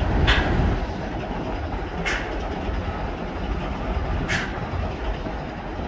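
CSX freight train rolling past, a steady rumble of wheels on rail, with a short, sharp high-pitched sound three times about two seconds apart.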